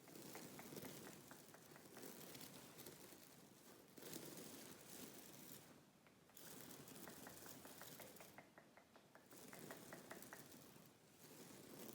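Faint scratching and rustling in repeated stretches of a second or more with short pauses between, overlaid by runs of small, quick clicks.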